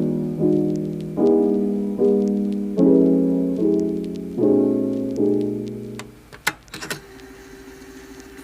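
Background piano music: chords struck roughly once a second, each dying away, stopping about six seconds in. Then a few sharp clicks and a faint steady tone.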